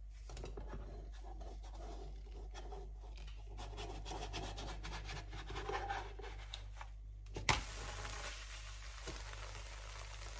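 Crepe cooking in a non-stick frying pan: light crackling with scraping and handling noises, then a single sharp knock about seven and a half seconds in as the crepe is flipped, followed by a steadier sizzle.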